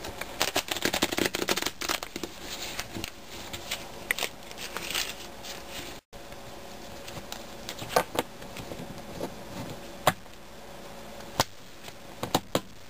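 A deck of playing cards being shuffled by hand: a fast run of flicking, crackling cards in the first two seconds and again a few seconds in, then single sharp card snaps and taps spaced out over the rest.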